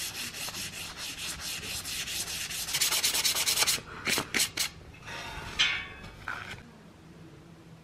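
Rusty steel frame being scrubbed by hand with an abrasive, rapid back-and-forth rasping strokes, then a few separate strokes and a longer scrape before it quietens near the end.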